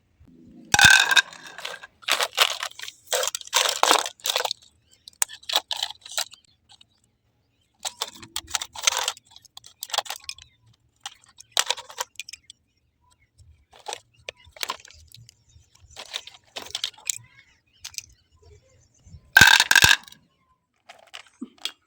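Small metal scrap parts clinking and rattling as they are handled and set down, in irregular bursts, loudest about a second in and again near the end.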